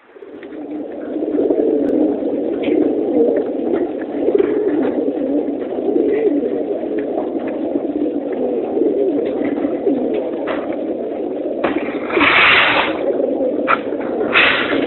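Many racing pigeons cooing together in the crates of an enclosed pigeon transport truck: a dense, continuous chorus that swells up in the first second, with scattered clicks and two short bursts of noise near the end.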